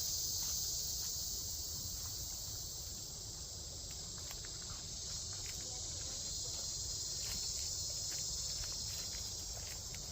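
Cicadas singing in a steady, high-pitched chorus that never breaks, over a low rumble and a few faint scattered clicks.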